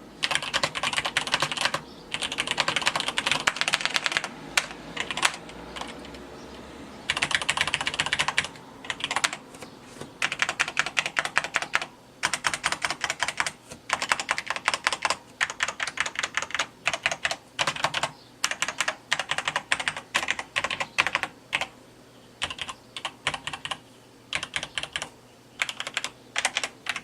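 Typing on a Cherry 3000 mechanical keyboard with Cherry MX Black linear switches. Fast runs of keystrokes come in bursts, with short pauses between them and a longer lull a few seconds in.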